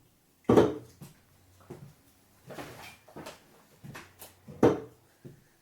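Handling noises: a string of separate knocks and clunks, the two loudest about half a second in and just before the end.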